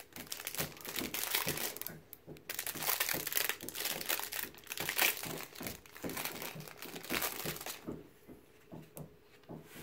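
Cellophane wrapper of a trading-card pack crinkling as it is torn open by hand, loudest in the middle and quietening about eight seconds in.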